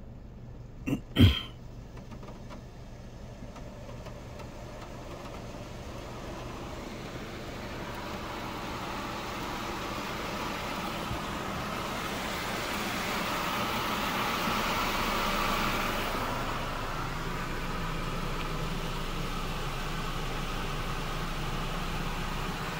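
On-board Premier dryer blowers of an Istobal Flex-5 touchless car wash running, heard from inside the car: a rush of air that grows louder as the gantry passes over and eases off a little near the end, over a low steady hum. Two sharp knocks about a second in are the loudest sound.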